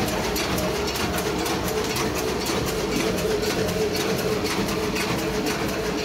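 APM320 automatic notebook hole punching machine running: a steady mechanical clatter of rapid, evenly repeating ticks over a constant hum.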